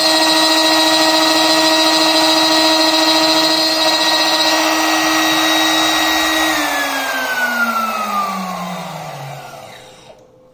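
CNC router's electrospindle whining at a steady pitch while its cutter mills a PVC plate, with a hiss of cutting over it. About six and a half seconds in the whine falls steadily in pitch as the spindle spins down, and the sound fades out near the end.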